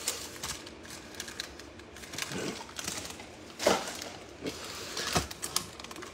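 Foil trading-card packs crinkling and rustling as a stack of them is handled and squared up on a tabletop, with a few sharper crackles.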